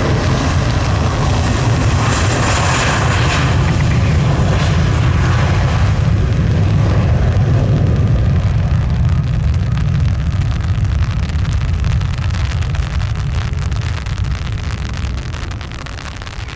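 Jet airliner's engines at takeoff power as it departs: a loud, steady low rumble with a hiss on top. The hiss is strongest in the first few seconds, and the sound slowly fades near the end.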